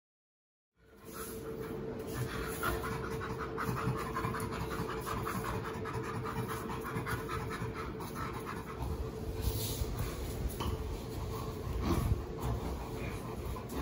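Two chimpanzees play-panting: the breathy, rhythmic laughter of chimpanzees at play, with scuffling as they wrestle. It starts about a second in, after a short silence.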